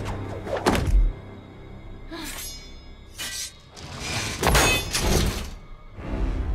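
Film fight-scene soundtrack: a dramatic music score under heavy thuds and metallic clangs, some of them ringing on. The loudest hits come about a second in and again around four and a half to five seconds.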